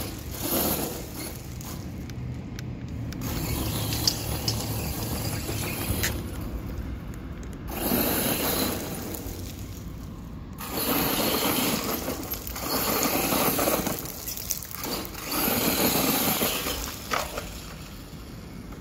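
Redcat Volcano EPX RC monster truck with a Hobbystar 3500KV brushless motor driving over loose dirt and gravel, its tyres spinning and throwing grit in several rushing bursts of a second or two, with quieter gaps between them.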